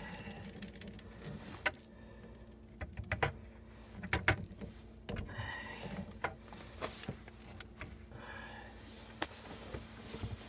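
Metal clinking and knocking as braided stainless-steel faucet supply lines and their fittings are handled and knocked against the pipes: a string of irregular sharp clicks, the loudest a few seconds in.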